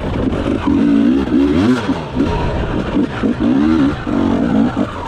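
Enduro dirt bike engine revving up and down under hard riding, its pitch rising and falling many times as the throttle is opened and closed.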